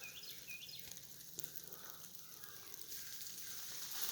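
Snow falling through the trees, a faint, steady fizzing hiss with scattered light ticks, with a few short high chirps near the start.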